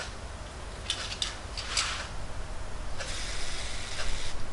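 Hand tools working on metal parts of an electric motor being stripped down: short scrapes and clicks about a second and two seconds in, then a steady rasping from about three seconds in.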